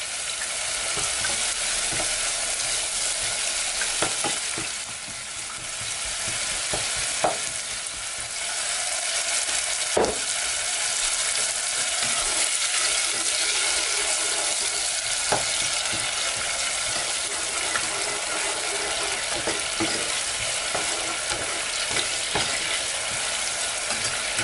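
Sliced onions with ginger-garlic paste frying in oil in a saucepan: a steady sizzle, stirred with a spatula that scrapes and knocks against the pan now and then with sharp clicks.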